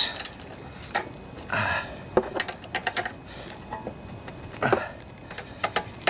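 Ratchet wrench clicking in short runs, with scattered metal clinks, as loose cylinder head bolts on a Briggs and Stratton lawnmower engine are snugged down.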